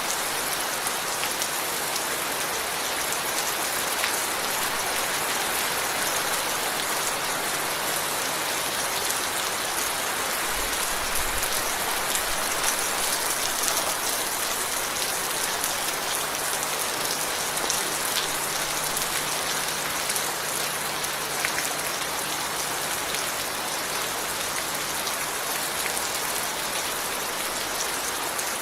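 Steady rain falling on a surface, a continuous hiss dotted with many fine individual drop ticks.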